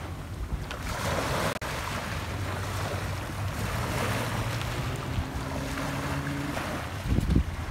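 Small waves breaking and washing up a concrete boat ramp, with wind buffeting the microphone in a low rumble. A brief louder thump near the end.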